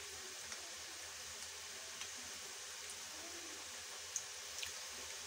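Faint, steady sizzle of hot oil frying a batch of potato fries, with a few small crackles.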